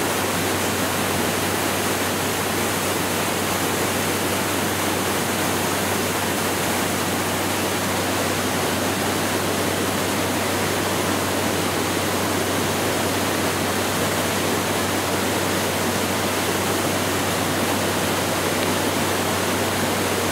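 Steady roar of a waterfall's rushing water, unbroken throughout, with a steady low hum beneath it.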